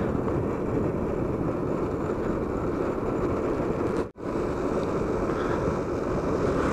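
Motorcycle on the move: steady riding noise of wind rushing over the camera microphone mixed with engine and tyre noise. The sound cuts out for an instant about four seconds in.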